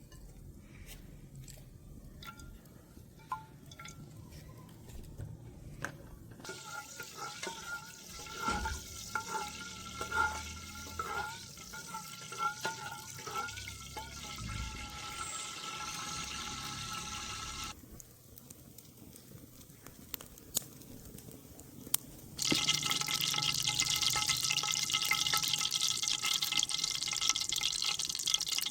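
Chicken meat sizzling and crackling in hot oil. After a few light knocks, the sizzle starts suddenly about six seconds in, drops away for a few seconds about two-thirds through, then comes back louder and steadier.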